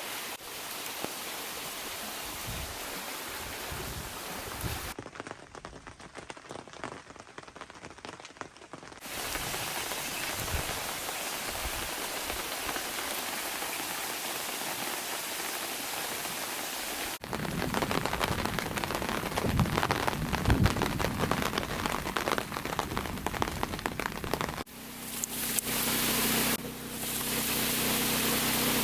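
Steady rain falling, heard across several shots cut together, the sound changing character abruptly at each cut. In the last few seconds a steady low mechanical hum joins the rain.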